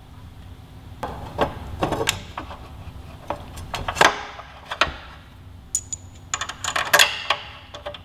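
Scattered metallic clinks and clicks of hands fitting brake caliper bolts on a motorcycle's front fork, with a sharp tick about four seconds in, a brief high ring near six seconds, and a quick run of clicks around seven seconds.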